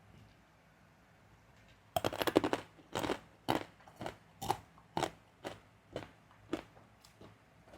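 A person biting and chewing crunchy keropok basreng crackers close to the microphone. There is a burst of crackling about two seconds in, then steady crunches about twice a second.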